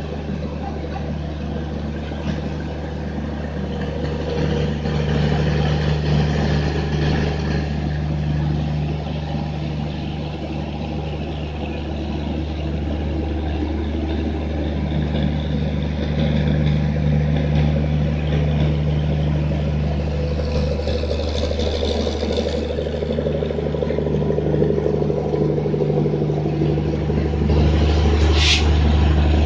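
Indian Railways WAP-7 three-phase electric locomotive running with a steady low electrical hum and blower noise, its deepest tone swelling louder about three seconds before the end. A brief high-pitched squeal sounds about a second before the end.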